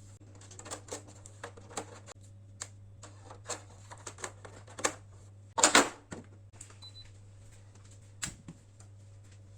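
A run of small clicks and knocks from objects being handled, with one louder clatter about halfway through and another knock near the end, over a steady low hum.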